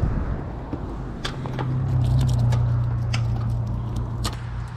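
A road vehicle passing on the highway: a low hum that swells and slowly fades, with sharp clicks and crunches of boots on gravel and on a corrugated plastic culvert pipe.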